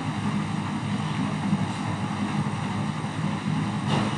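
Steady low rumbling background noise, with one brief knock near the end.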